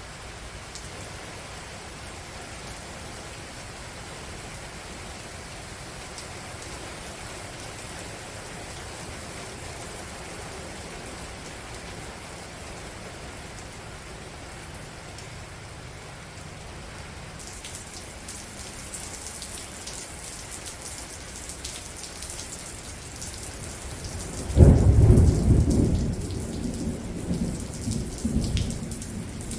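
Rain falling as a steady hiss that turns into louder, crackling rain partway through. Near the end a loud thunderclap breaks in and rumbles on.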